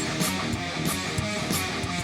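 Guitar-driven intro music with a steady drum beat.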